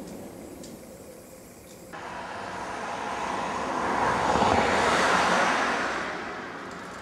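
A car passing on the street, its tyre and engine noise swelling to a peak about halfway through and then fading away.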